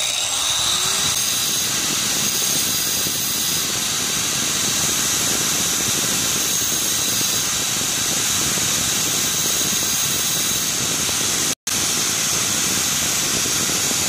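Angle grinder running steadily while a drill bit's cutting edge is ground against its spinning disc, a continuous high-pitched whine with grinding hiss. The sound cuts out for an instant about three-quarters of the way through.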